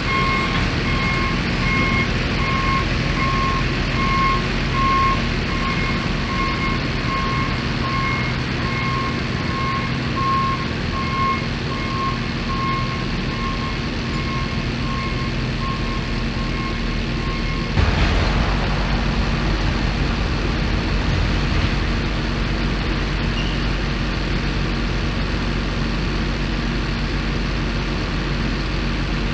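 Wheel loader reversing: its backup alarm beeps over and over above the steady running of its engine. About 18 seconds in the beeping stops and the engine's low rumble grows louder.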